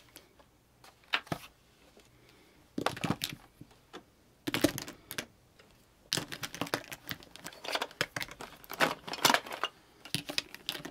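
Plastic mascara tubes clicking and clattering against one another in bursts as handfuls are set down and lined up, with the clatter thickest in the second half.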